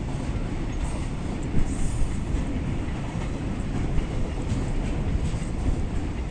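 Freight train rolling past, a steady low rumble with wheels clacking over the rail joints.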